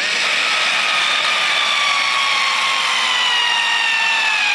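Cordless drill/driver running steadily as it drives a set screw into the kayak pedal drive's plastic housing; its motor whine starts abruptly and falls slowly in pitch.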